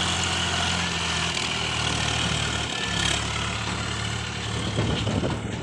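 Swaraj 744 FE tractor's three-cylinder diesel engine running steadily while the tractor pulls a loaded trolley through soft paddy-field mud, its pitch shifting slightly a couple of times.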